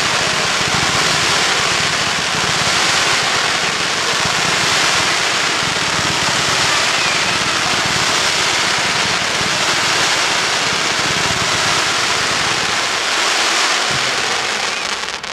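Fireworks barrage: many shots and glittering stars firing at once, so dense that they merge into one continuous loud rushing hiss with no separate bangs, then it falls away suddenly.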